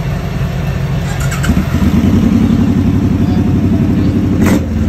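Cruiser motorcycle engines idling. About a second and a half in, the engine note steps up and gets louder. A sharp click comes near the end.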